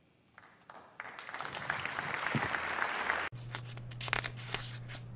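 Audience applauding. The clapping starts about half a second in and swells, then cuts off suddenly about two-thirds of the way through, leaving a low steady hum and a few scattered claps.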